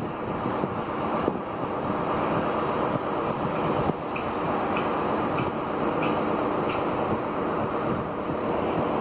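A passenger train running through the station on a far track, a steady rumble with faint short ticks about twice a second in the middle.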